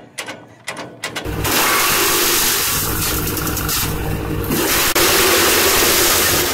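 Farm tractor engine running a PTO-driven wood chipper, cutting in abruptly about a second in after a few clicks and then running steadily and loudly.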